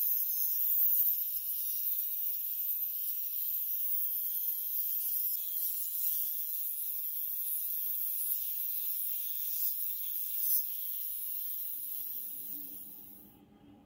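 Dremel rotary tool spinning a small abrasive wheel against a brass clock ring, a steady high-pitched hiss and whine of metal sanding, with a few brief louder scrapes. It stops about thirteen seconds in, as a low droning tone fades in.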